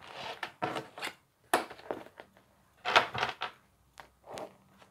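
Ballpoint pen scratching on notebook paper in short strokes, with a few sharp clicks and rustles as pens are picked up and handled.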